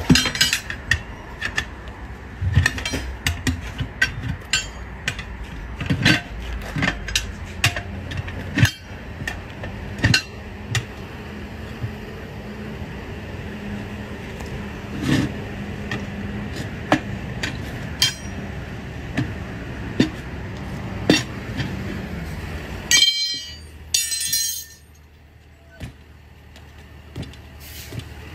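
Steel tire irons clinking, knocking and scraping against a steel wheel rim while prying a tire bead off the wheel: irregular sharp metallic clinks, sometimes several a second. The clinking stops suddenly about 23 seconds in after a quick flurry, and it is quieter after that.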